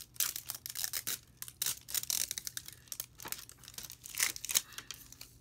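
Plastic packaging crinkling and tearing as a wrapped toy capsule is handled, in irregular bursts of crisp rustles and clicks.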